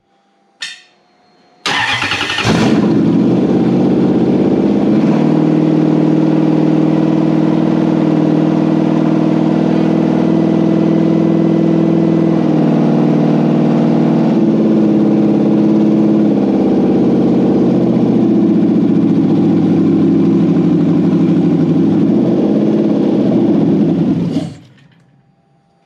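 Toyota 1UZ-FE 4.0-litre V8 (non-VVTi) starting up about two seconds in and running steadily at a fast idle on a freshly wired Link ECU with a rough first fuel map, then stopping near the end.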